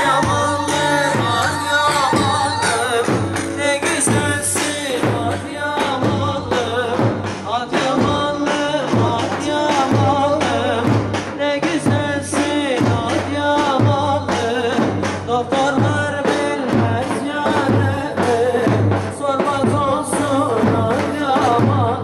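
Live Turkish folk dance music for a halay, played by a wedding band: a steady drum beat under a wavering melody, with singing.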